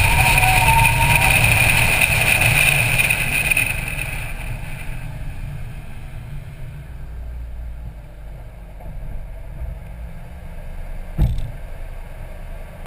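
Car running at speed on a race track, engine and road noise loud with a high steady whine, heard from a rear-mounted camera. About four seconds in the car slows and the noise drops away to a quieter low rumble at low speed. A single thump about eleven seconds in.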